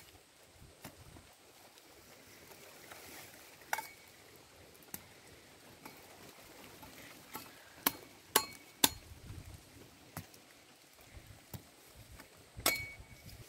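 A machete chopping cassava roots off the stem: a few sharp strikes, some with a brief metallic ring. One comes about four seconds in, three follow in quick succession a little past the middle, and another comes near the end.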